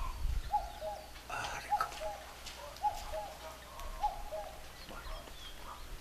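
A dove cooing: a low two-part call, repeated about once a second.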